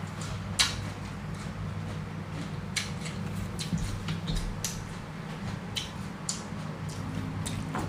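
A person chewing a crisp green Ninh Thuận jujube (táo), with scattered short crunches, over a steady low hum.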